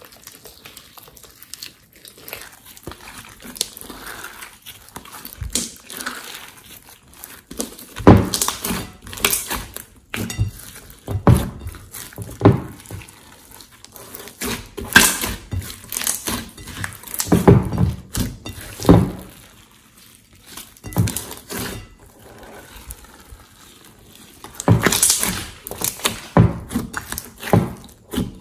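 Hands kneading and stretching a large mass of slime in a glass bowl, making irregular wet squelches, pops and crackles. The squelches grow louder from about eight seconds in.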